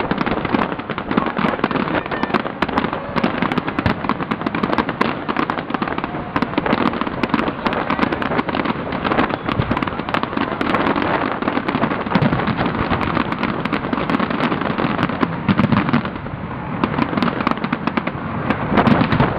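Fireworks display: a dense, continuous barrage of overlapping bangs and crackling. The barrage thins briefly about three-quarters of the way through, then picks up again.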